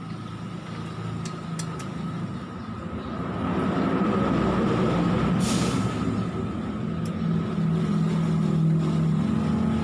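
A vehicle engine running, getting louder about three to four seconds in, with a short hiss about halfway through.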